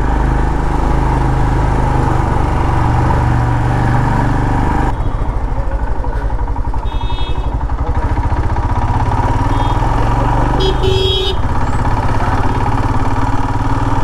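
Motorcycle engine running steadily under the rider with a rushing haze of wind at first; from about five seconds in its rapid firing pulses come through plainly. Short horn toots sound twice, once about seven seconds in and again around eleven seconds.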